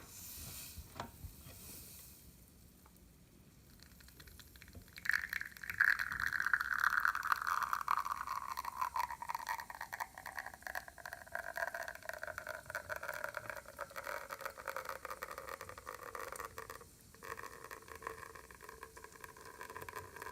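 Faema Faemina lever espresso machine at work: a click and a short hiss, then from about five seconds in a long crackling, sizzling run of liquid sound whose tones slowly fall in pitch.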